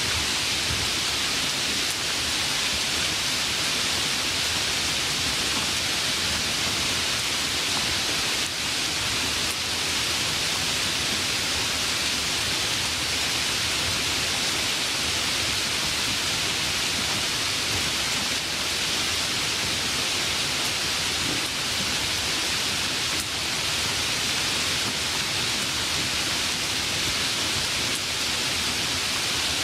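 Light rain falling in a steady, even hiss.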